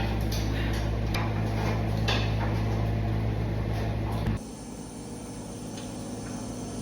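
A machine running with a steady hum under scattered scraping clicks, which cuts off abruptly about two-thirds of the way through. A quieter low rumble follows.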